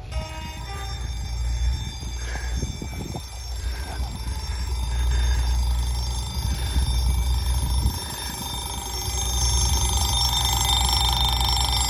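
Level crossing warning alarm sounding as the crossing activates for an approaching train: an electronic alarm of several steady tones, louder near the end, over a low rumble.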